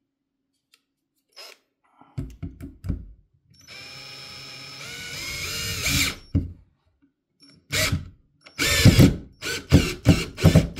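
Einhell TE-CD 18/2 Li cordless 18 V drill-driver driving a long screw into a wooden beam. A few knocks come first as the bit is set, then the motor whines steadily for about two seconds, growing louder and rising a little in pitch. Near the end comes a string of short, loud bursts as the screw is driven home.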